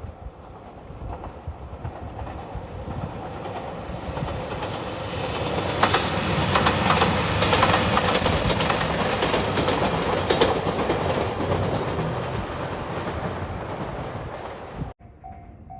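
A JR Shikoku 2700-series diesel express train passing close by. It swells to its loudest midway, with wheels clicking rhythmically over the rail joints, then fades. Near the end, level-crossing bells ring with a steady repeating clang.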